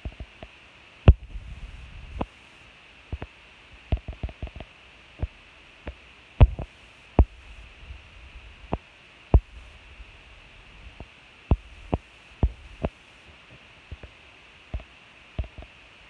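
Scattered sharp knocks and taps at irregular intervals, some with a dull low thud, over a steady faint hiss.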